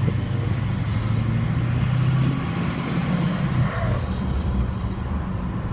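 Duramax LMM 6.6-litre V8 turbodiesel running through a 4-inch straight-pipe exhaust, a steady low rumble under light throttle. Over it a high turbo whistle climbs about two seconds in, then falls in pitch near the end as the throttle eases off.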